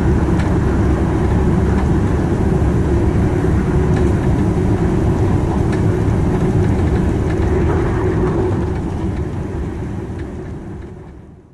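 Train running along the track: a steady low rumble of wheels on rail with a few faint ticks, fading out over the last few seconds.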